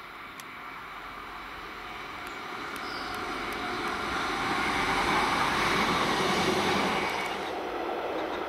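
Class 158 diesel multiple unit passing close by: its engine and wheels on the rails grow steadily louder to a peak, then cut off abruptly near the end, leaving a fainter, steady train sound.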